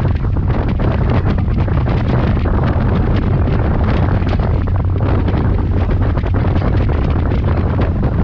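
Strong wind buffeting the microphone on board a moving ferry, in uneven gusts, over the steady low drone of the boat's engine.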